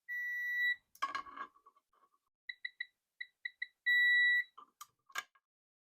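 Torque wrench beeping as a bolt is tightened to its set torque: a run of short beeps that come closer together, ending in a long steady beep when the setting is reached, with a few sharp clicks of the wrench and socket around them. A long beep also sounds at the start.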